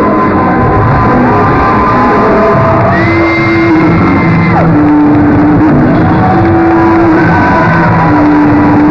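Loud rock music with long held notes.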